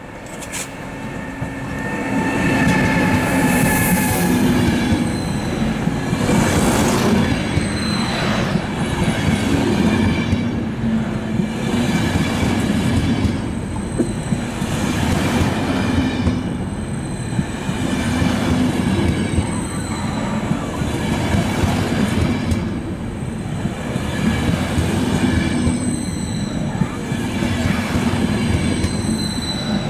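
ÖBB Taurus electric locomotive and its passenger coaches rolling slowly past, the wheels clattering over rail joints and points. High wheel squeal comes and goes, and the sound swells about two seconds in as the train draws alongside.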